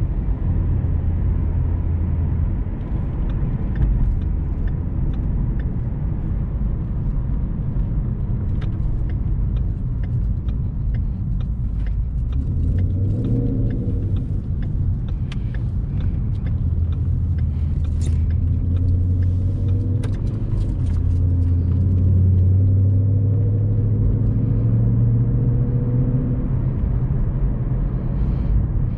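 Ford Mustang GT's 5.0 V8 running while cruising, heard from inside the cabin as a steady low rumble. The engine note grows stronger about twelve seconds in, and rises gently in pitch in the second half as the car picks up speed.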